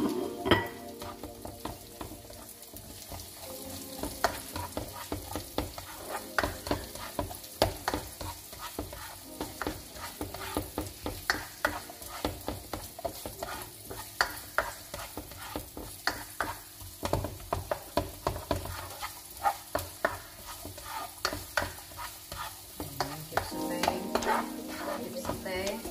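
Onion, garlic and ginger sizzling in hot oil in a wok, with a spatula scraping and clicking against the pan again and again as they are stirred over high heat.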